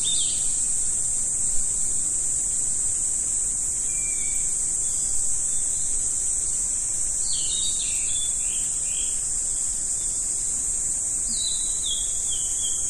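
Steady high-pitched insect chorus, with bird calls over it: a short series falling in pitch about seven seconds in and another near the end.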